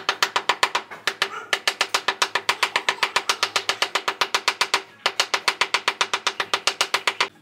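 The butt of a wooden hammer handle tapping rapidly on a glazed ceramic floor tile, about seven sharp ringing knocks a second, in three runs with two brief pauses. The taps bed the tile down into the cement mortar beneath it.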